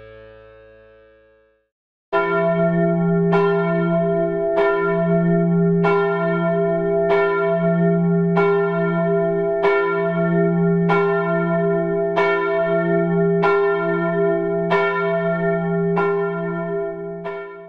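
A church bell tolling, struck about thirteen times at an even pace of roughly one stroke every second and a quarter. Each stroke rings on into the next. It starts abruptly about two seconds in and stops near the end.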